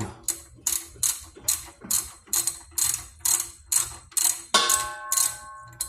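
Ratchet wrench clicking in a steady rhythm, about two to three clicks a second, as it works a car's oil drain plug. About four and a half seconds in comes a ringing metallic clang.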